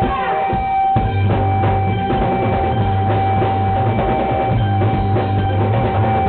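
Live electro-punk band music: drum kit and electric bass guitar, under a steady high note held throughout. A heavy bass line comes in about a second in.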